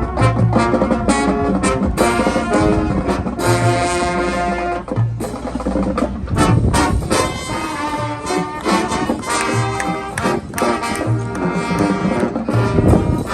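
High school marching band playing: brass chords held over drum hits and low bass-drum thuds.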